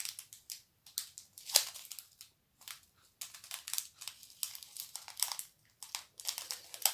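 Small plastic packets of beads and rhinestones crinkling as they are handled, in irregular clusters of crackles with short pauses.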